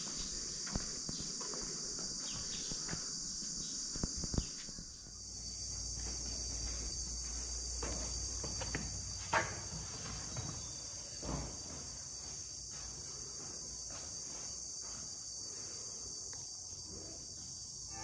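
Insects shrilling in a steady, high-pitched chorus, with a few faint knocks along the way.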